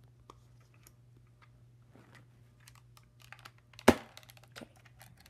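Plastic clicks and rattles from a Nerf Quadrot blaster being handled and loaded with foam darts. There is one sharp, loud snap about four seconds in.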